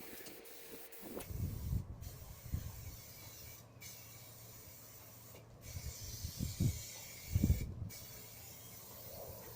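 Aerosol spray-paint can hissing in long passes, cut off briefly about four times as the nozzle is released between strokes. A few low rumbles come through underneath.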